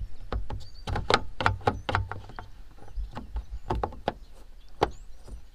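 Halogen H11 low-beam bulb being worked back into a 2019 Ford Ranger's headlamp housing by hand: an irregular run of sharp plastic clicks, taps and scrapes, about a dozen, the loudest near the end.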